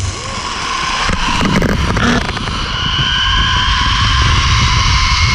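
Zip-line trolley pulleys running along the steel cable, a steady whirring whine that grows louder as the ride picks up speed. Wind buffets the microphone, with a few knocks early on.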